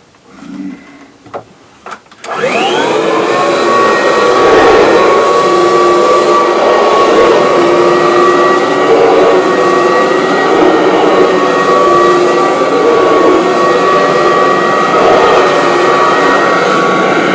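Vacuum cleaner switched on about two seconds in, its motor whine rising quickly and then running steadily. A few light knocks come just before it starts.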